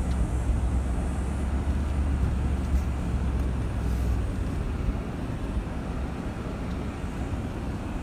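2019 Ram 1500 Rebel pickup chugging along slowly on a dirt trail: a steady low engine and drivetrain rumble that eases slightly about five seconds in.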